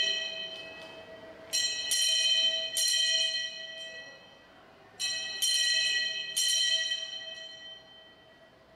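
Altar bells rung at the elevation of the host during Mass: two rounds of three quick strikes, each ringing brightly and fading away, the first round about a second and a half in and the second about five seconds in.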